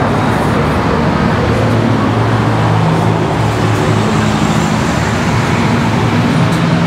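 Steady road traffic noise, with engines running and a low hum throughout.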